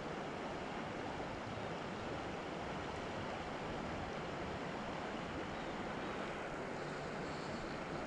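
Steady rushing of a shallow creek's flowing water, an even, unchanging wash.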